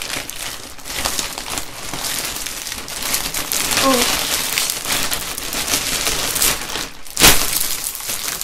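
Plastic packaging crinkling and rustling as it is handled, with one sharper, louder crackle about seven seconds in.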